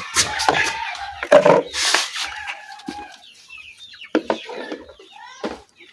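Domestic chickens clucking, with a rooster crowing in a long held call over the first few seconds, and a few sharp knocks.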